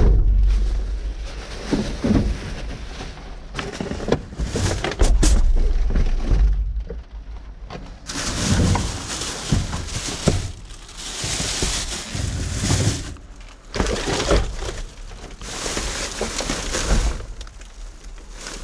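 Plastic bags and cardboard rustling and crinkling as trash is rummaged through and shifted by hand, with a few dull thumps.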